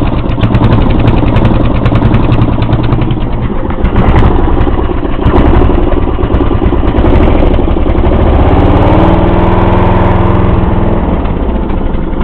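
13 HP engine of a Snapper riding mower running just after a cold start. It runs steadily, and its note rises and falls between about eight and eleven seconds in.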